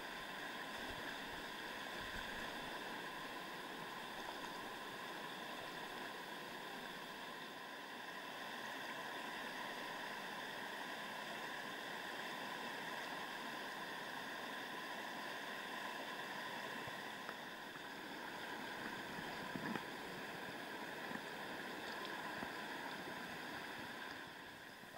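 Mountain stream rushing over rocks: a steady rushing of water, with a few light clicks in the last few seconds.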